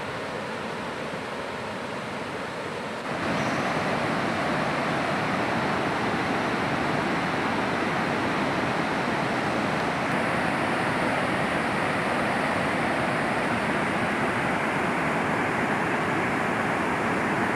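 Fast-flowing river rushing over rocks: a steady wash of water noise that gets louder and brighter about three seconds in.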